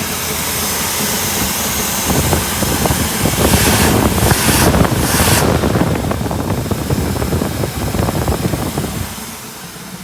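1959 Buick's Nailhead V8 running after a crank-no-start caused by weak spark, now firing with the ignition switched over to the other of its two coils. It gets louder from about two seconds in, with a hiss over the top in the middle, then drops back about nine seconds in.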